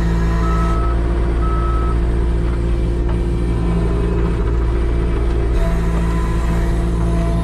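New Holland 328 skid steer's diesel engine running steadily with a loaded bucket of manure. Its reversing alarm beeps twice in the first two seconds, then stops as the machine moves forward.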